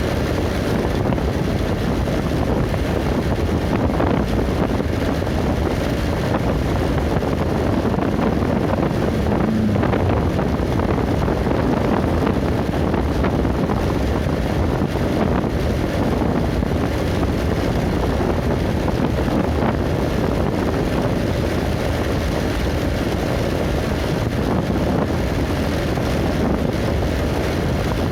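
Wind buffeting the microphone over the steady rumble of a vehicle travelling along a road.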